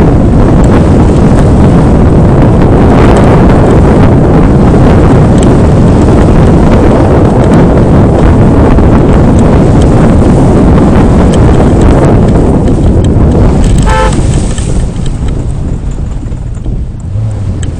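Loud, steady noise of an off-road vehicle on the move, with one short horn toot about fourteen seconds in; after the toot the noise eases somewhat.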